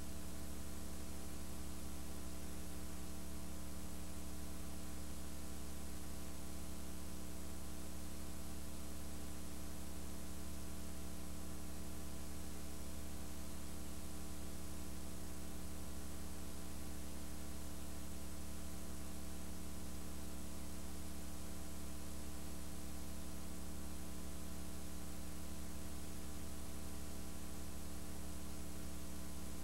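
Steady electrical mains hum with a faint even hiss underneath, unchanging throughout. No sounds of the routine are heard.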